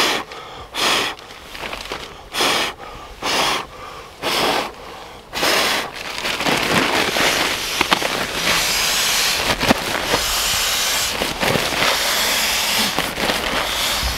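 Puffs of breath blown into a Nemo Vortex pump sack, about one a second for the first five seconds or so, filling it to inflate a Nemo Tensor sleeping pad. Then a longer stretch of steady rushing air with crinkling nylon as the sack is handled and squeezed.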